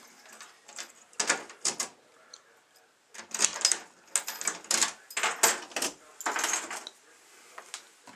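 A run of sharp clattering clicks and knocks from a glass-fronted reptile enclosure and its fittings being handled, coming in quick clusters.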